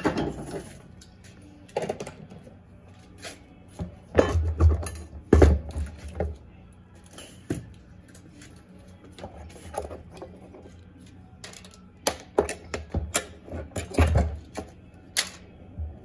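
Irregular clicks, knocks and metal clatter from a washing machine's gearbox-and-motor assembly and its parts being handled, lifted off the base and set down, with heavier thuds about four to six seconds in and again near fourteen seconds.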